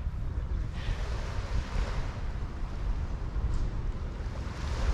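Wind buffeting the microphone: a steady, gusty low rumble under a broad hiss.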